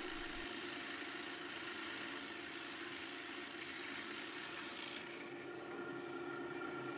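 Drill press motor running with a steady hum while a Forstner bit bores a flat-bottomed hole into multiplex plywood. The cutting noise drops away about five seconds in as the bit is lifted out of the hole, and the motor keeps humming.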